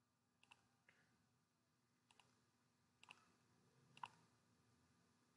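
Faint computer mouse clicks, a few scattered ones, some in quick pairs, against near silence.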